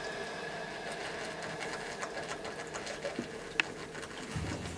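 Spinning cutter head of an engine-block resurfacing machine whirring steadily as it runs down after a pass, its tones slowly fading. A light click about three and a half seconds in, and a low rumble comes in near the end.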